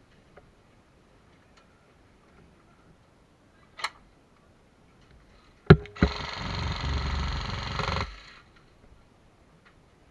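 Airsoft electric gun firing a fast full-auto burst of about two seconds that stops abruptly. A sharp click and a single loud crack come just before it.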